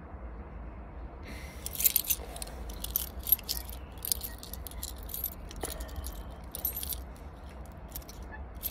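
A bunch of keys on a keyring jangling and clinking as they are handled, in irregular bursts starting about a second in.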